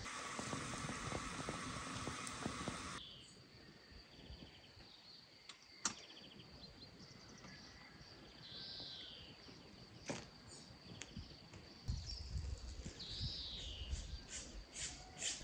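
A samovar hissing steadily as it heats, close up, for the first three seconds. Then open-air ambience: a steady high insect drone, a few bird chirps, and several sharp clinks of glass and china, most of them near the end.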